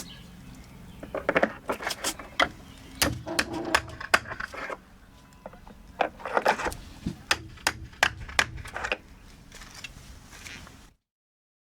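Irregular clicks, taps and scraping from hand work on plastic insulation fasteners and their pins. The sound cuts off suddenly about eleven seconds in.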